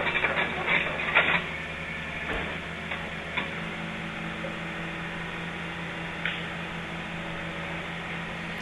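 Construction machine engine running with a steady low hum. In the first second and a half there is loud clattering and cracking, as machinery works limbs and trees by the road.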